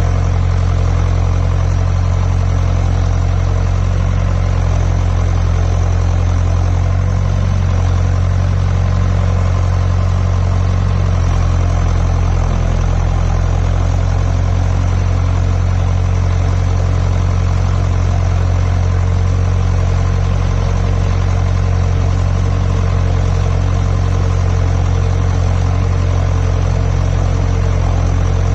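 John Deere 6400 tractor's four-cylinder turbo diesel engine running steadily at an unchanging speed, a constant low drone.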